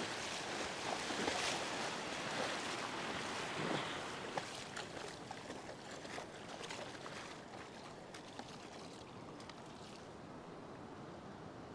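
Splashing in shallow surf as a hooked trevally thrashes and is dragged through ankle-deep water, over the wash of small waves. The splashes come thick and fast at first and die away over the last few seconds, leaving a gentler wash of water.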